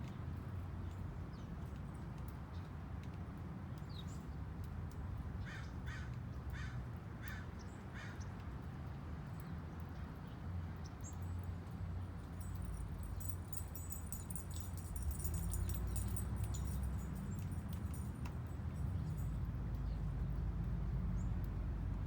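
A crow cawing, a quick series of about six caws a few seconds in, over a steady low rumble. Thin, very high-pitched tones follow in the second half.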